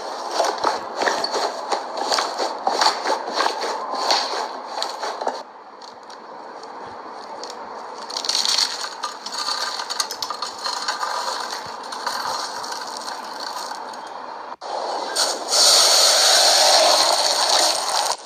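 Slime being handled, squeezed and poked, with dense crackling and clicking squishes for the first few seconds, then softer sticky handling. After a short break near the end, a louder, steadier squishing stretch begins.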